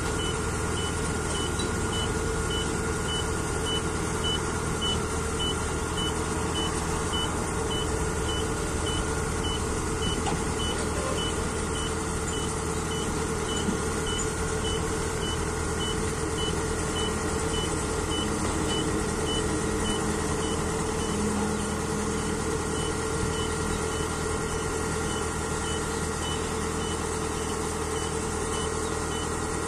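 Kubota Harvest King crawler combine harvester's engine running steadily as it backs slowly off a trailer, its reversing alarm beeping evenly about three times every two seconds.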